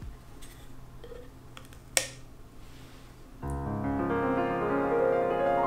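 A quiet stretch with one sharp click about two seconds in, then background music led by piano or electric keyboard starting about three and a half seconds in.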